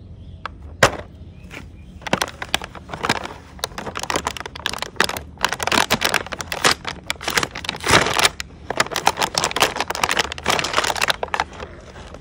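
Clear plastic blister packaging crinkling and crackling with many sharp snaps as it is pulled open and torn away from its cardboard backing.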